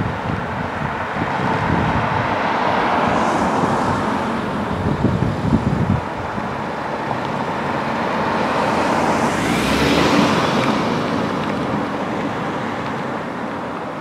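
Road traffic: the steady hiss of cars passing, with one vehicle swelling to its loudest about ten seconds in and then fading away. Gusts of wind rumble on the microphone through the first half.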